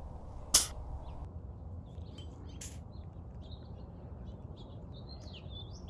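Small birds chirping, scattered short calls that grow more frequent in the second half, over a low steady background rumble. A single sharp click sounds about half a second in.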